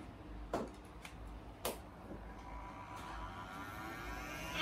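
Two clicks as a Simco ionizing air blower is switched on, then its fan motor starts and spins up, with a faint whine rising in pitch.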